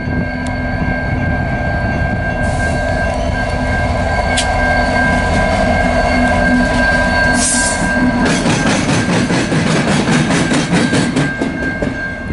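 CN light-engine move of diesel locomotives, led by SD70M-2 8810, passing close with a steady low engine rumble. About two-thirds of the way in, its wheels set up a fast, even clicking over the rail joints. A grade-crossing bell rings as a steady high tone throughout.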